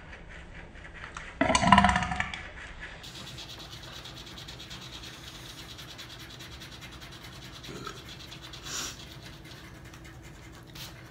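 Scratch-off lottery tickets being scratched on a table, a steady faint rasping. A brief louder sound comes about a second and a half in.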